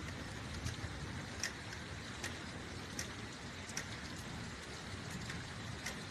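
Steady rain, with single drops striking a hard surface close to the microphone in a regular drip, roughly every three-quarters of a second.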